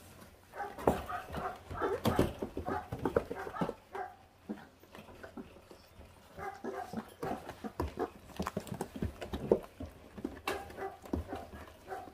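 A litter of four-week-old puppies chewing and tearing at raw meat on the bone, with sharp clicks of teeth on bone and short, repeated puppy growls and whines. The noise comes in two busy spells with a quieter stretch in the middle.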